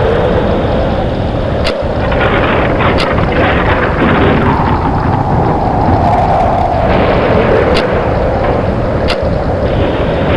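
Thunderstorm sound effect: thunder rumbling continuously over a steady hiss of rain, with four brief sharp cracks.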